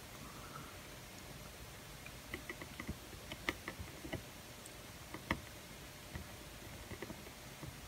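Faint, scattered light clicks and ticks of soldering work, with the iron tip and jumper wire being worked against a tiny resistor on a MacBook logic board. There is a short run of ticks about two to three seconds in, and the sharpest click comes about five seconds in.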